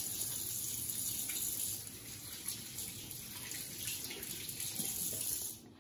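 Kitchen tap running into the sink as water, a steady hiss that shuts off suddenly near the end.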